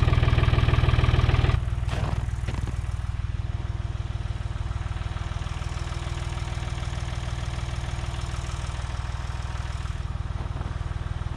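An engine idling steadily with a fast, even pulse, stepping down a little in level about a second and a half in.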